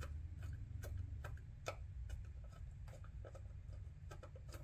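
Faint, irregular small clicks and taps of hands working a large fastener loose inside a Philips IntelliVue MP50 patient monitor's case, over a low steady hum.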